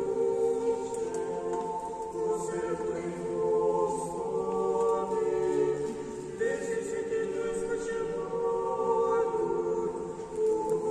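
Church choir singing a hymn of the Orthodox memorial service (panakhyda) unaccompanied, several voices holding long chords that change about every second.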